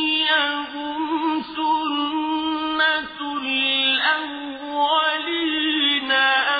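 A man chanting Quran recitation in the slow, ornamented tajweed style: one voice holding long drawn-out notes that waver and glide in pitch, with short breaks between phrases.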